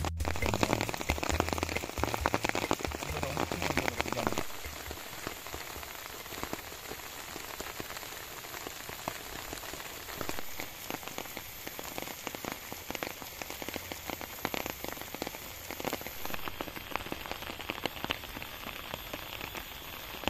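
Steady rain falling on leaves and straw, a dense patter of drops, louder for the first four seconds or so; the rain is getting heavier.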